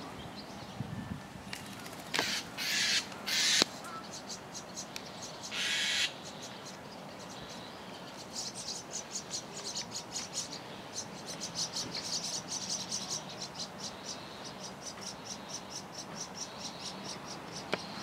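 White-cheeked starling giving harsh, raspy calls: three short ones close together a couple of seconds in, and a longer one around six seconds in. After that, a fast, high, pulsing chirping runs on in the background.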